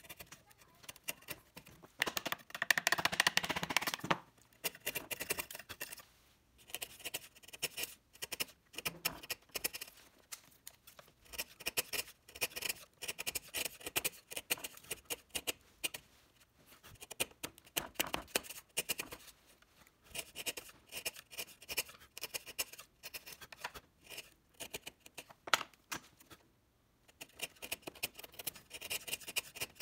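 Hand tools working a small piece of wood: short scraping strokes with light clicks and taps, in irregular runs, with a louder run of scraping about two to four seconds in.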